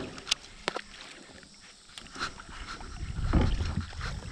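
Handling noise in a small boat: a few sharp clicks, then low rumbling knocks for the last second or so.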